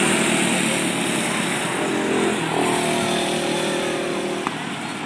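Small engines of several microd race cars running together at racing speed as they pass close by, a steady buzz whose pitch shifts partway through.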